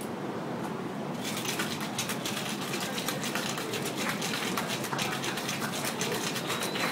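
Ice cubes rattling rapidly inside a cobbler cocktail shaker shaken hard, starting about a second in.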